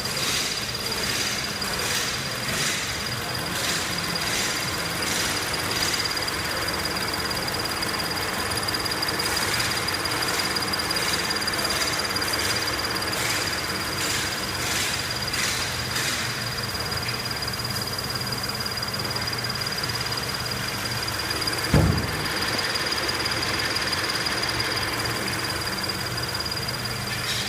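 Scion FR-S's flat-four boxer engine idling fully warmed up, with a steady high-pitched squeak and repeated quick chirps from the high-pressure fuel pump assembly: the known chirp/squeak covered by TSB 0023-12. A single thump sounds about 22 seconds in.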